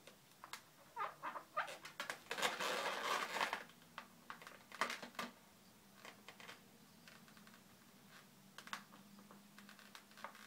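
Latex modelling balloons squeaking and rubbing under the fingers while a marker draws a face on them: scattered short squeaks and scratches, busiest from about two to three and a half seconds in.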